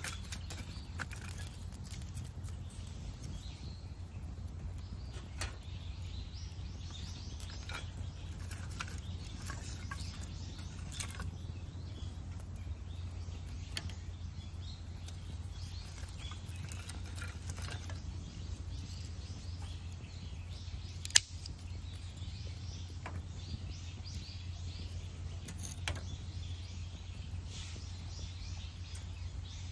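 Split wood fire burning on a folding fire stand, crackling with scattered sharp pops and one loud snap about two-thirds of the way through, over a steady low hum.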